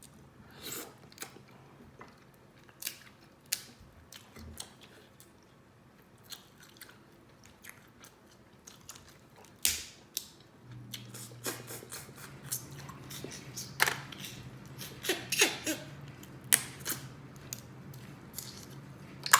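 Close-up eating sounds: crab legs cracked open with sharp snaps and clicks of shell, and chewing and lip-smacking on the crab meat. A low steady hum comes in about halfway through.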